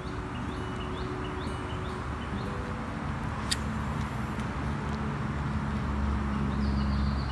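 A motor engine hums steadily, shifting pitch a couple of times and growing slightly louder toward the end, with birds chirping and one sharp click about three and a half seconds in.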